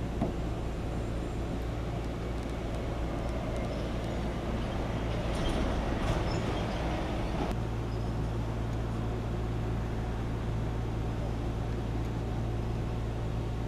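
Steady low hum of an idling vehicle engine, with a louder rush of noise swelling about midway that stops abruptly a couple of seconds later.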